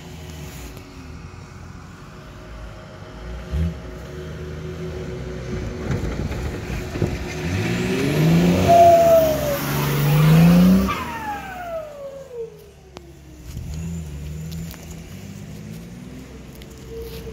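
Nissan Patrol GR off-road truck's engine revving hard as it climbs a dirt slope. It builds to its loudest as the truck passes close, then falls in pitch and fades as it drives away.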